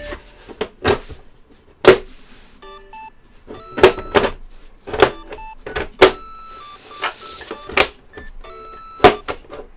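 Plastic snap-fit latches of a BenQ GW2283 monitor's rear case clicking free one after another as the back cover is pried off by hand: a series of sharp snaps, with brief scraping of plastic in between.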